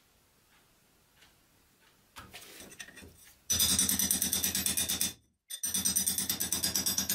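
Harsh, rasping metal-on-metal scraping from a rusty steel bar pressed against the spinning hub of an electric motor's shaft. It comes in two loud bursts of about a second and a half, with a short break between them.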